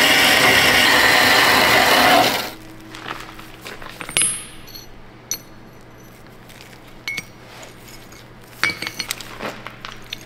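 Horizontal metal-cutting band saw sawing through a forged Damascus steel billet, a loud steady grinding hiss that cuts off about two and a half seconds in. After it a low steady hum remains, with a few scattered sharp metal clinks as the cut steel pieces are set on an anvil and clamped together.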